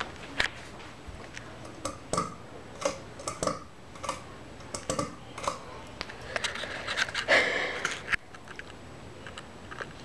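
52-inch Hunter Fremont ceiling fan running, a steady low hum under irregular light clicks and taps. About seven seconds in, a louder noisy rush lasts roughly a second.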